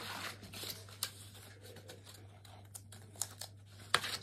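Quiet rustling of paper and card with a few sharp light clicks and taps, from craft materials being handled while letters are put onto a handmade card. A low steady hum runs underneath.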